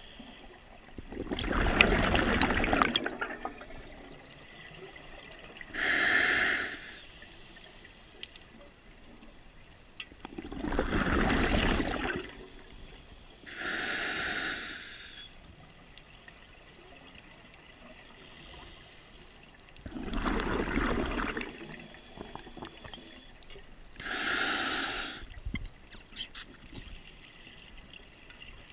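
Scuba diver breathing through a regulator underwater, a slow rhythm of about one breath every nine seconds: a short hiss from the regulator on each inhale, and a longer rush of exhaled bubbles on each exhale.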